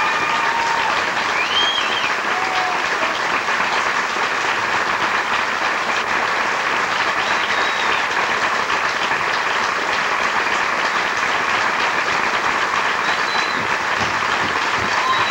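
Theatre audience applauding steadily through a curtain call.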